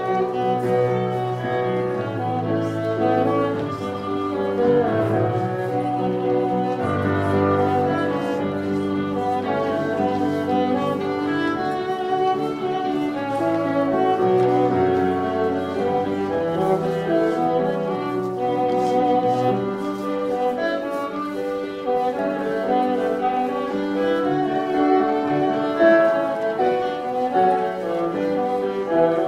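Instrumental music for English country dancing: a steady tune led by fiddle over lower bowed strings, playing without a break.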